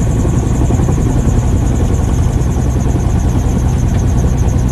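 Magni Orion 24 gyroplane's engine, pusher propeller and rotor running steadily, heard from inside the cabin as a loud, even drone with a fast rhythmic pulse in the hiss above it.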